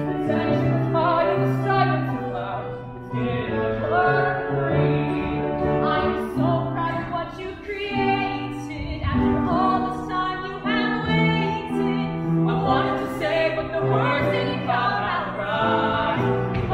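A musical-theatre song sung live on stage, with held notes over a sustained accompaniment.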